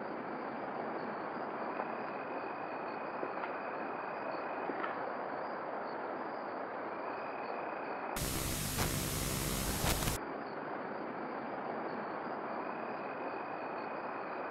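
Steady hiss of background noise with a faint high whine, broken just past the middle by a louder, brighter burst of hiss that lasts about two seconds and cuts off suddenly.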